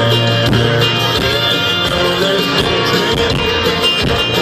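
Live country band playing an instrumental passage, with plucked banjo and guitars over a steady beat.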